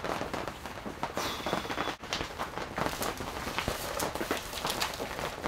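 Plastic bag rustling, with a run of small knocks and clatters as items are cleared off a table and dropped in.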